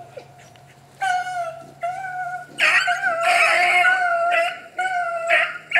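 A pack of rabbit hounds baying and yipping in long, held cries, starting about a second in, with several dogs crying together in the middle. The dogs are opening on the rabbit's trail as the chase begins.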